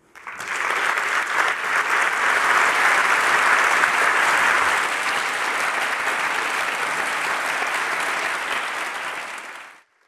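A large audience applauding, a dense steady clapping that builds in quickly and fades out near the end.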